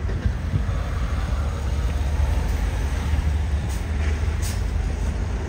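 Freight train rolling past, a steady low rumble with faint clicks of wheels on the rails.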